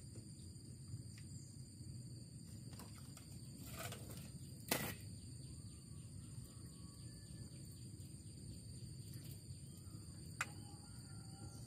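Quiet lakeside ambience: a steady high insect buzz with a few faint bird chirps, broken by a sharp click about five seconds in and a smaller one near the end.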